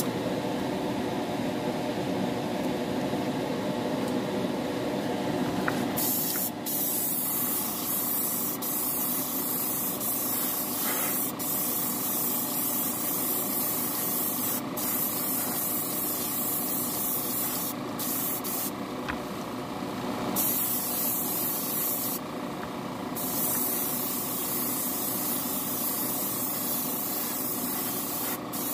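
Airbrush spraying clear coat onto a plastic model car body: a strong hiss that stops briefly several times as the trigger is let off, over a steady machine hum.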